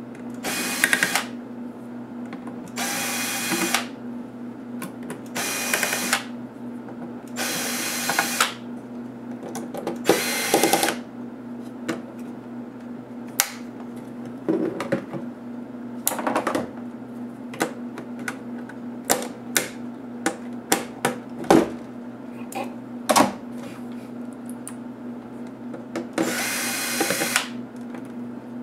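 Cordless electric screwdriver running in short runs of about a second, backing out the HP DV3000 laptop's case screws: five runs in the first eleven seconds and one more near the end. Between the runs come scattered sharp clicks and knocks.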